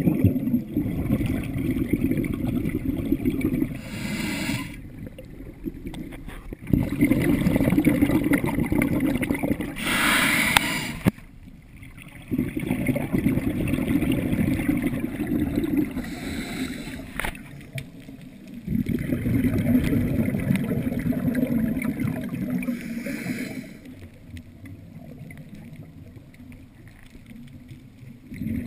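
Scuba diver breathing through a regulator, heard underwater: long bubbling rumbles of exhaled air alternate with short hissing inhalations, four breath cycles in a steady rhythm.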